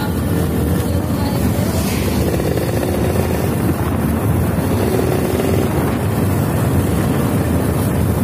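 Steady wind buffeting the microphone over the running and road noise of a vehicle travelling along a road.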